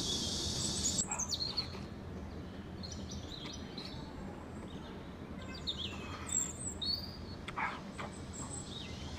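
Cicadas' steady high buzz that stops about a second in, followed by scattered short bird chirps. Noodles are slurped up at moments, about a second in and again near the end.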